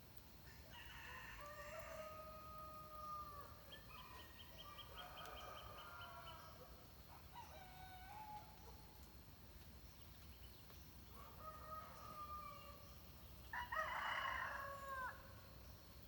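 Faint rooster crowing: a series of drawn-out crows, one to two seconds each, the loudest near the end. A quick, fine trill of another bird comes a few seconds in.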